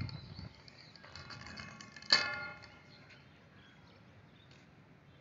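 A single sharp metallic clang about two seconds in that rings out for about half a second, from the upright steel reinforcing rods the Labrador is nosing at. Faint low rustling around it.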